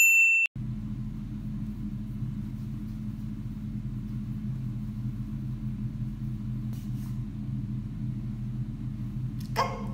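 A short, loud electronic beep, then a steady low hum of a running fan.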